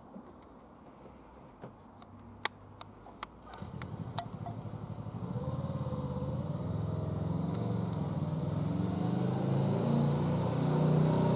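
A few sharp clicks, then a motor engine running from about three and a half seconds in, growing steadily louder.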